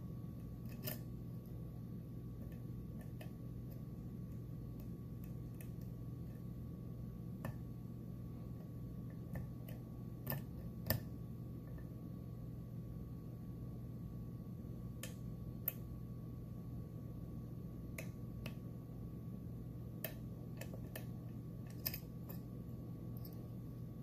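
Sparse, irregular small metallic clicks of a dimple pick working the pins of a Mul-T-Lock Interactive+ pin-in-pin dimple lock with serrated drivers, under tension from a tension wrench. The clicks come a second or a few apart, the sharpest about eleven seconds in, over a steady low hum.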